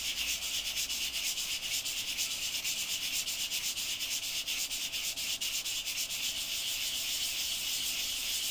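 A resin-printed part rubbed back and forth by hand on a perforated sanding disc backed by a flat aluminium plate: a steady, hissing scrape pulsing with quick, even strokes as the back face is lapped flat.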